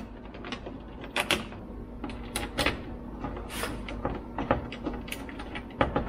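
Irregular clicks, taps and knocks of hands working on the parts inside a car door, moving the plastic inner cover and the window regulator pieces, about a dozen scattered over the few seconds, over a steady low hum.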